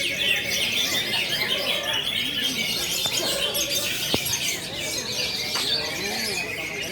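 Many greater green leafbirds (cucak ijo) singing at once in a dense, continuous chorus of fast chirps and whistles.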